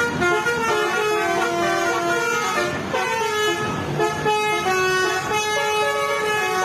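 Bus 'telolet' horn, a set of electrically switched air horns playing a quick tune, each steady note jumping to a new pitch every fraction of a second.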